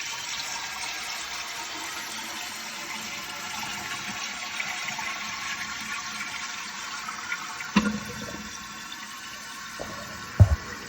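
Older American Standard toilet flushing, then water running steadily as the tank refills through a newly replaced fill valve. Two short knocks come near the end.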